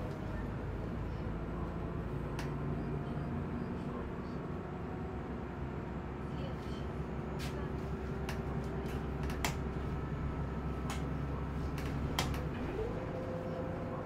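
Ride noise inside a moving city bus: a steady engine and road drone with scattered sharp clicks and rattles. About a second before the end a whine rises in pitch and then holds steady.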